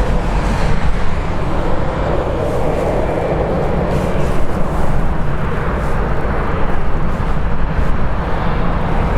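Jet airliner engines running at an airport, a steady loud rumble and roar.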